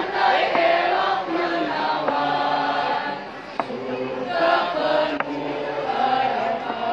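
A mixed school choir of girls' and boys' voices singing together in held notes, with a brief drop a little past halfway before the singing picks up again.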